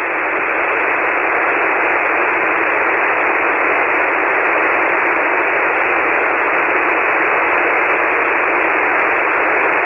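Steady hiss of a ham radio receiver on an empty 40-metre SSB frequency: band noise squeezed into the narrow single-sideband voice passband, with no station transmitting. It swells slightly over the first second, then holds steady.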